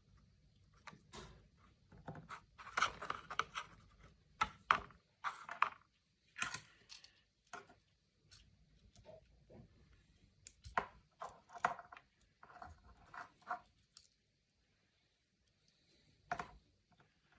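Hands unboxing a toy: packaging rustling in short bursts with scattered taps and clicks, and a sharper tap near the end.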